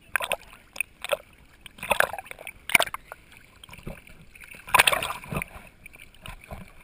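Sea water lapping and slapping against a waterproof GoPro housing held at the water's surface, in uneven splashes and sloshes, the biggest cluster about five seconds in.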